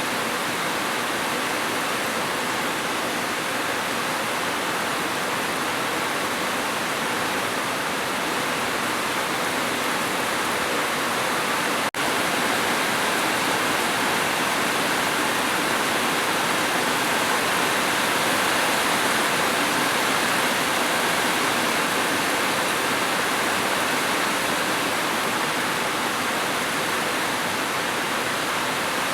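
Steady, dense rain, an even unbroken hiss with a momentary dropout about twelve seconds in.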